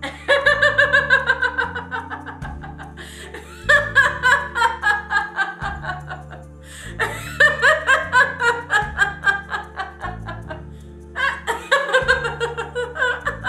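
A woman laughing out loud in deliberate laughter-yoga laughter, rapid "ha-ha-ha" pulses in four bouts that each slide down in pitch, with short breaks for breath between them. Soft background music runs underneath.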